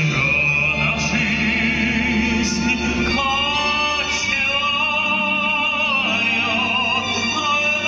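Accordion music: sustained chords over a low bass, with a man singing.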